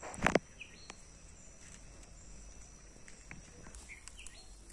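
Quiet outdoor garden background with a steady high-pitched insect drone and a few faint bird chirps. A brief loud thump comes about a quarter of a second in.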